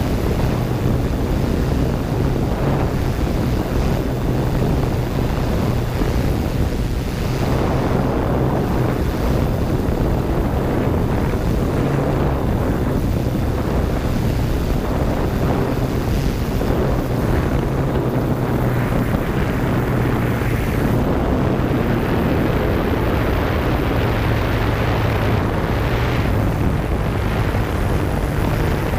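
Yuneec Q500 quadcopter's electric motors and propellers running steadily in flight, heard close up from the drone's own camera: a continuous buzzing hum whose pitch wavers slightly as the drone manoeuvres.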